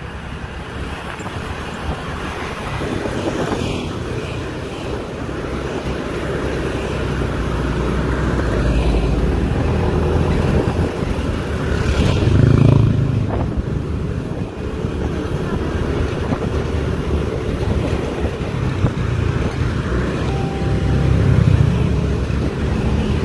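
Road traffic heard from a moving vehicle: the steady engine and tyre noise of the ride itself, with scooters and trucks running close by. It swells about twelve seconds in as a truck passes close alongside, and again near the end.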